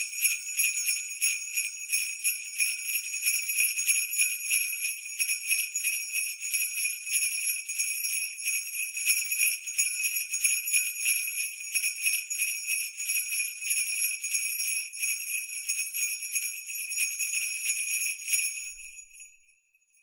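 Jingle bells shaken continuously in a fast, even rhythm, stopping near the end with a short ringing fade.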